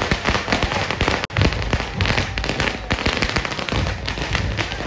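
A string of firecrackers going off in a dense, irregular run of sharp cracks, with a split-second dropout about a second in.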